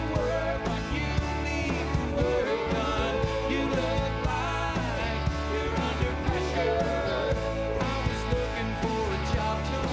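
Country-rock band playing live, with electric guitars and drums, and a male lead voice singing over it.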